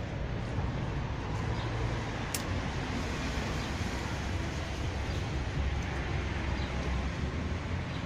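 Steady rumble of street traffic, with a single brief click about two and a half seconds in.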